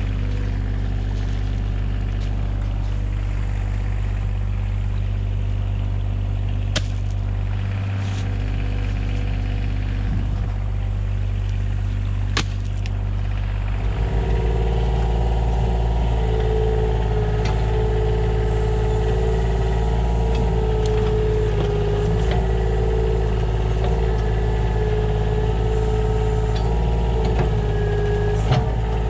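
Vehicle engine running steadily, with a few sharp knocks in the first half. About halfway through the engine picks up speed and gets louder, and a steady whine joins it.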